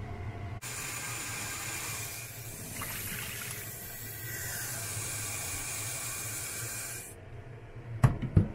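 Tap water running into a pan of boiled sweet potatoes in a stainless-steel sink, cooling them after boiling; the flow is steady and stops about a second before the end. Two sharp knocks follow near the end.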